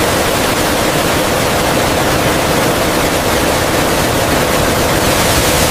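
Heavy water spray from a motorcycle rain-test booth, a steady, loud hiss like downpouring rain.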